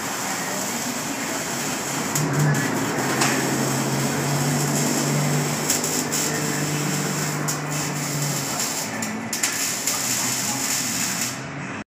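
Arc welding on a car's exhaust pipes: a steady crackling hiss from the welding arc, broken by a few brief pauses. A low steady hum runs under it for several seconds in the middle. The resonators have been cut out and straight pipe is being welded in their place.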